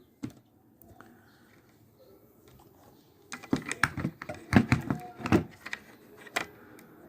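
Irregular clicks and taps of multimeter probes being set on the pins of a power-supply MOSFET on a circuit board, checking drain and source for a short circuit. The clicks bunch together in the second half.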